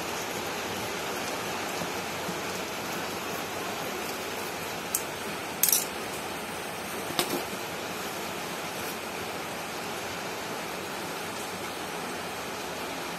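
Bubble wrap and plastic packaging crinkling in short, sharp crackles as a parcel is unpacked by hand, loudest a little over five seconds in, over a steady background hiss.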